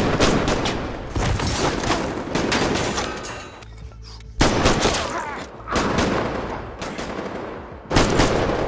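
Repeated bursts of rapid gunfire in a film shootout. Volleys of shots come at the very start, about four and a half seconds in, and near the end, each followed by ringing echoes.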